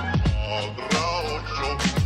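Background music with a steady beat: kick drum hits over a sustained bass line and a melody.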